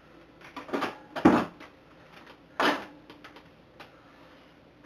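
A person sniffing sharply three times, the loudest about a second in, with a few light clicks between: a nose running from the heat of ghost pepper.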